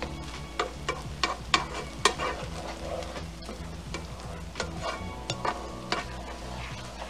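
A spoon stirring risotto rice in a frying pan, with irregular scrapes and clicks against the pan over a low sizzle as the ladled broth cooks down into the rice.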